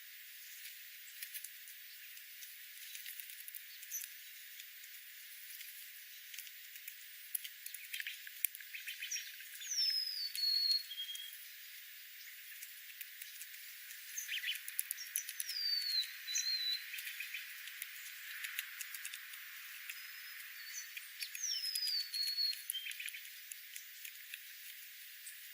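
A bird's high whistled call that slides down in pitch and ends on a short level note, given three times several seconds apart, over a steady scatter of faint clicks and crackle.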